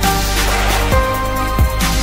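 Electronic background music with a steady beat of deep kick drums under held synth chords, with a cymbal-like wash at the start.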